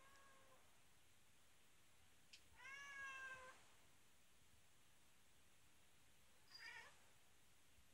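A young brown-and-white cat meowing three times: a short call at the start, a longer, louder call about two and a half seconds in, and another short call near the end.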